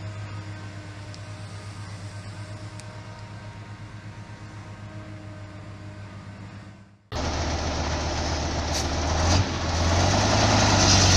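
A heavy diesel engine idling with a steady, pulsing low hum. About seven seconds in it cuts off suddenly and a louder, rougher engine takes over, running harder.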